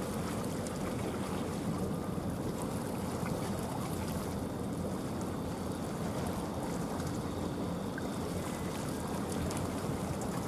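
Steady low rush of wind and sea water, even throughout with no distinct event.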